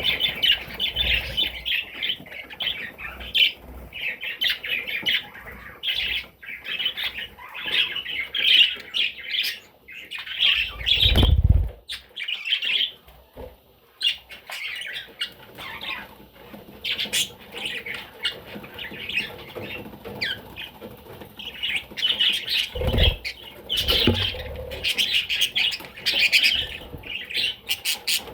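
Budgerigar chattering and warbling in rapid, twittering bursts almost without pause. Two brief low thumps break in, one near the middle and one later on.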